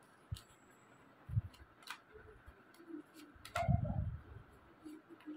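Tarot cards being handled on a table: a few light clicks and taps scattered through, with a louder soft thump a little after three and a half seconds in and a sharp click at the end.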